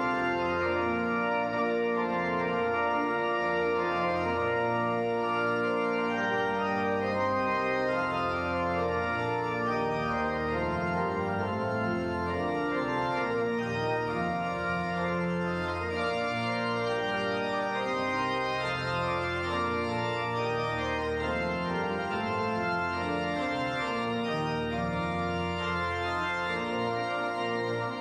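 Church pipe organ playing full sustained chords over a moving pedal bass line.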